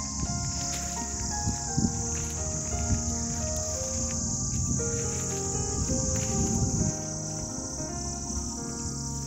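A steady, high-pitched insect chorus shrilling without a break, with soft background music of held notes beneath it. A low rumble of handling or footsteps runs under it and drops away about seven seconds in.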